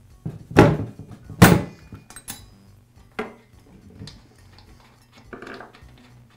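Metal clinks and knocks from a spark plug socket being worked on and off a chainsaw's spark plug: two loud clunks in the first second and a half, then a few lighter clicks and a short scrape.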